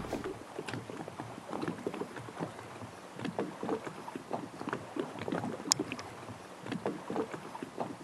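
Choppy lake water lapping and splashing, with many small irregular slaps of wavelets close by.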